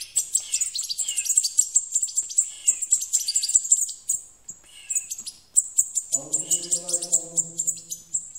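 Hand-reared European goldfinch fledglings calling for food while being syringe-fed: rapid, high, thin chirps, several a second, with short falling notes mixed in. A low human voice, held for about two seconds, joins near the end.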